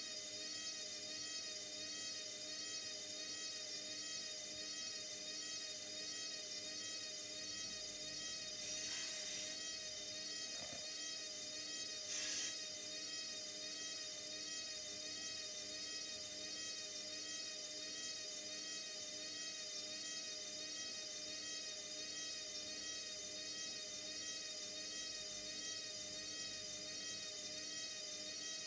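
Indesit 71252 washing machine's motor running steadily with a whine, its pitch wavering gently about once a second as the drum turns.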